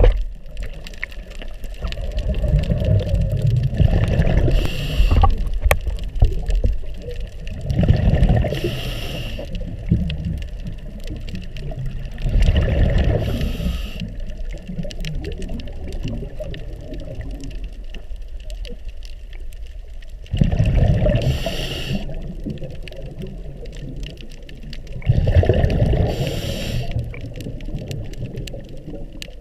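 A scuba diver breathing underwater through a regulator. About five breaths come at uneven intervals, each a short hiss paired with a rumbling gush of exhaled bubbles, with a longer pause in the middle.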